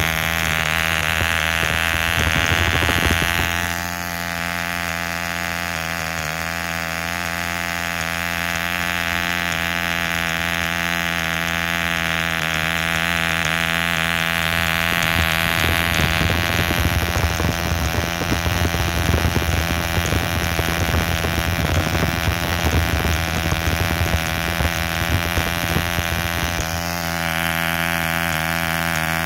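Davies Charlton 1 cc compression-ignition (diesel) model aircraft engine running steadily with its propeller spinning. Its note shifts slightly about four seconds in and again near the end.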